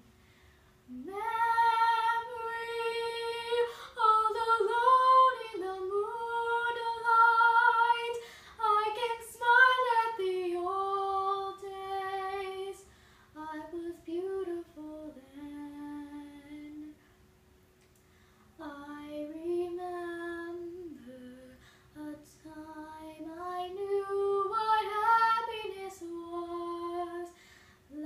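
A woman singing solo without accompaniment: long held notes with vibrato, in phrases that grow quieter before a short pause past the middle, then resume.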